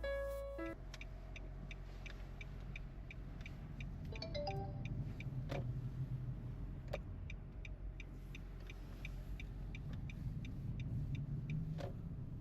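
Nissan Note e-Power Nismo S heard from the cabin, rolling slowly with a low rumble and a regular light ticking, about two to three ticks a second, plus a few louder clicks. This is the abnormal noise on moving off and coming to a stop that the owner suspects comes from the front suspension, drive shaft or hub bearing.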